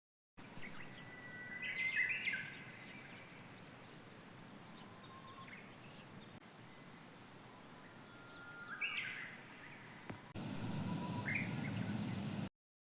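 Birds calling over quiet outdoor ambience: a short run of chirps about two seconds in and another about nine seconds in. From about ten seconds in, a louder, noisier ambience with one more brief chirp.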